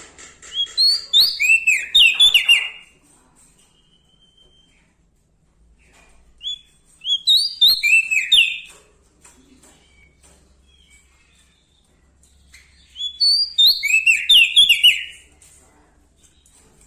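A prenjak daun Lombok singing three short bursts of rapid, sharp, down-slurred notes, each about two seconds long and a few seconds apart.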